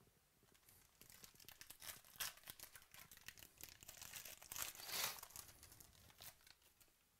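Foil wrapper of a 2018 Panini Chronicles Baseball card pack crinkling and tearing as it is pulled open by hand. It starts about a second in and is loudest around five seconds in.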